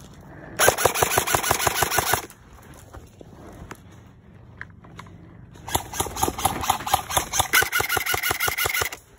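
Airsoft rifle firing on full-auto in two rapid bursts: a short one about half a second in, and a longer one of about three seconds near the end.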